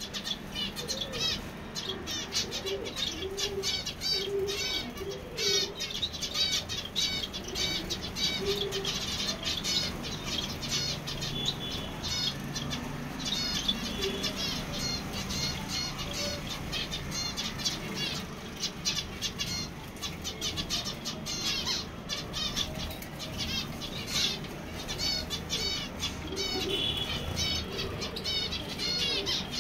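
Small finches, mainly zebra finches, calling with rapid, high chirps throughout, with wing flutters as birds fly onto and off the feeding plate.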